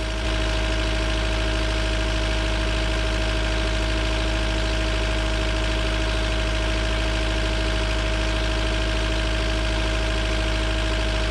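Skid steer's diesel engine idling steadily, heard close at the open engine bay.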